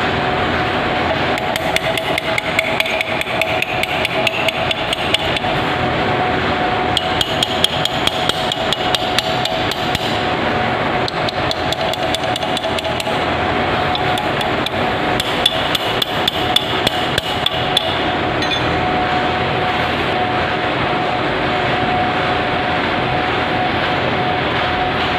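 Rapid light hammer taps on steel, in bursts through the first two-thirds, as a bearing is knocked onto the end of a roller shaft. A steady machine drone runs underneath.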